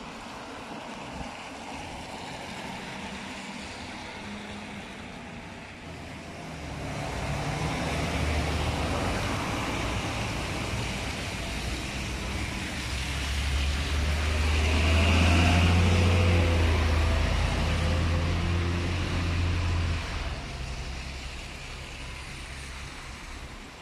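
Road traffic on wet streets: cars passing, with a deep engine hum that builds about a third of the way in, is loudest a little past halfway and then fades.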